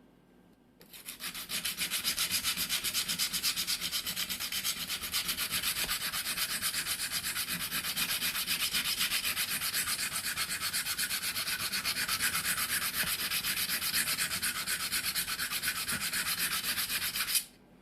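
Knife steel being rubbed back and forth on a curved Atoma diamond plate in quick, even strokes, a dry scraping rasp, as pitting is polished out of the concave back (urasuki) of a single-bevel knife. The rubbing starts about a second in and stops suddenly near the end.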